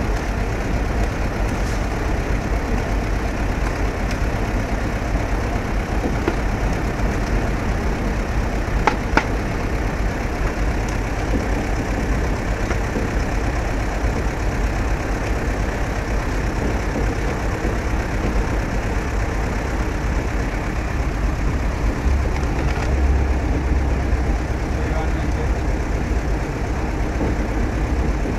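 Steady low engine-like drone with a dense background noise, unchanging in level, and a single sharp knock about nine seconds in.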